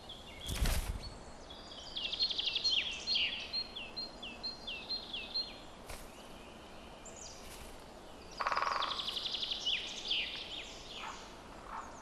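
Woodland birdsong: a songbird repeats a series of short falling chirps, with other calls around it. About eight seconds in comes a rapid roll of taps about a second long, typical of a great spotted woodpecker drumming on a trunk to mark its territory. A short soft thump sounds near the start.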